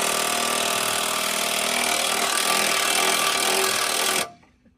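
A power tool running steadily under load, then stopping abruptly about four seconds in.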